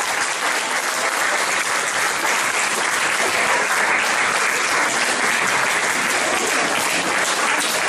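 Audience clapping steadily for a folk dance troupe taking its bow.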